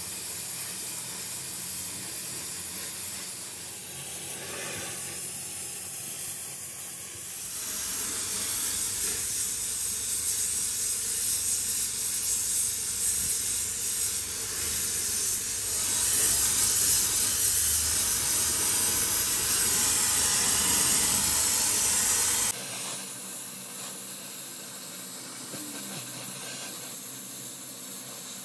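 Gas welding torch flame hissing steadily while filler rod is melted into a crack in an alloy wheel rim. The hiss jumps louder about a third of the way in and drops back abruptly near the end.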